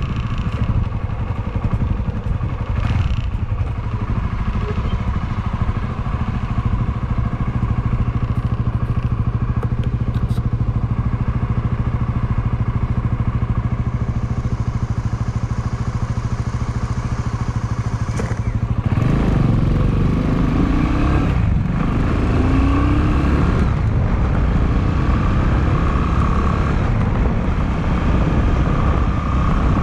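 Honda Clubman motorcycle's single-cylinder engine running at a steady engine speed, then, about two-thirds of the way through, getting louder as the bike accelerates, the revs rising, dropping at a gear change and rising again.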